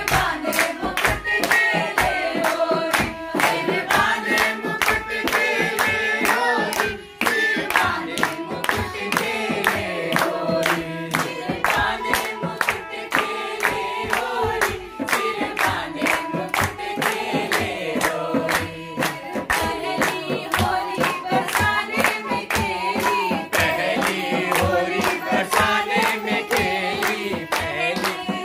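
A group of voices, men, women and children, singing a traditional Holi folk song (hori) together, with steady rhythmic hand-clapping at about three claps a second.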